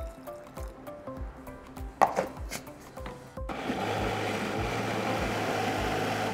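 Electric mixer grinder running steadily, wet-grinding soaked moong dal with ginger, turmeric and water into a thick batter, starting about three and a half seconds in. Before it there is a sharp knock about two seconds in, and background music with a steady beat plays throughout.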